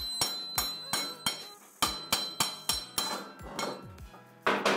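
Hammer blows on the end of a quad's steel rear axle, driving it out sideways through the hub: a run of sharp metallic strikes, about three a second, with a clear ringing tone. The loudest blow comes near the end.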